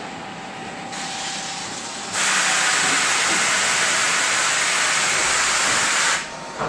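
AMS Galaxy milking robot blasting its teat-prep cup clean with a jet of spraying air and water: a low hiss that turns into a loud, steady hiss about two seconds in, holds for about four seconds, then cuts off suddenly.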